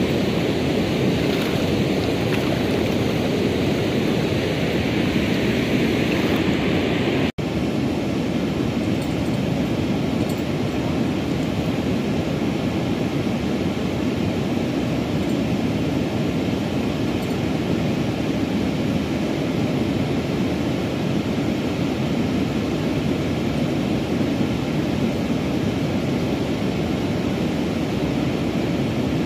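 Steady rushing of river water pouring over a low weir and through the shallows. The sound drops out for an instant about seven seconds in, then carries on much the same.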